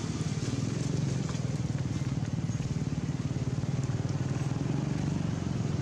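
An engine running steadily at a constant speed, a low, even drone.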